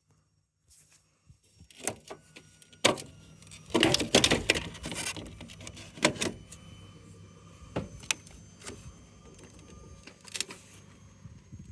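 Clatter of parts and tools being handled during a washing machine teardown: scattered knocks and clicks, with a burst of rattling about four seconds in, over a faint steady hum.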